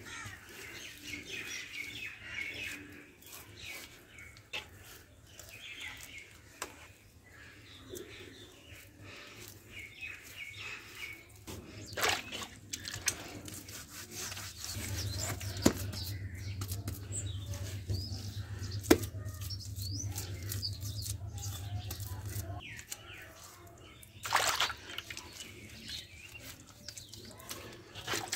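Small birds chirping on and off, with occasional soft knocks and scrapes of a hand smoothing wet mud plaster on a clay stove. A low steady hum comes in for several seconds in the middle.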